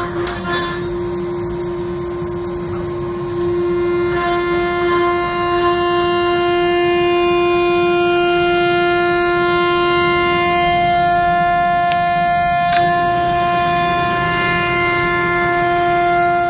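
CNC router spindle cutting a sheet of MDF, a steady high whine with dust extraction rushing through the hose on its brush shoe. It gets louder about four seconds in and stops abruptly at the very end.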